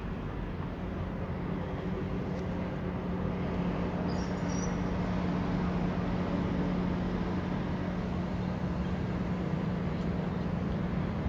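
A steady mechanical hum with a constant low drone, a little louder midway.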